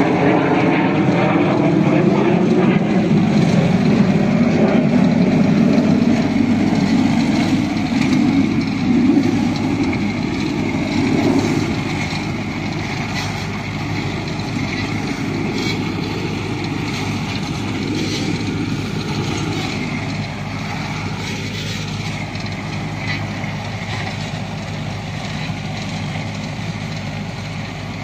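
Tractor engine working under load pulling a super seeder, its rotary blades churning through the soil and cane stubble in a steady rumble. It grows quieter after about ten seconds.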